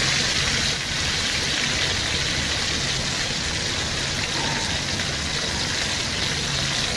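Marinated chicken breasts sizzling steadily in hot oil in a frying pan as they brown, with a faint low hum underneath.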